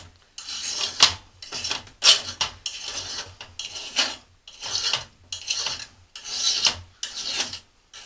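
Hand file rasping along the cutting edge of a steel lawn mower blade in about a dozen repeated strokes with short pauses between, sharpening the edge.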